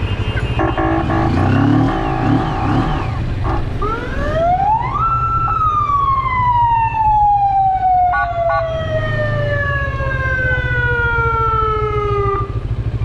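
Emergency vehicle siren, first a fast warble, then one long wail that rises for about a second and falls slowly over about seven seconds before cutting off. A motorcycle engine runs steadily underneath.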